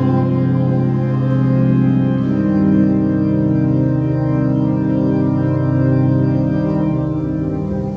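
Organ music playing slow, held chords that change every couple of seconds.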